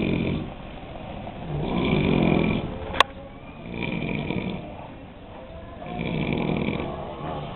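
Sleeping men snoring, a rasping snore about every two seconds, with a sharp click about three seconds in.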